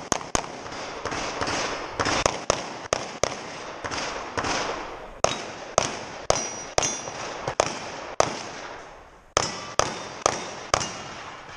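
Pistol shots fired in a long string, about fifteen in all. Most come in quick pairs about half a second apart, with short pauses between groups. Each sharp crack trails off in echo.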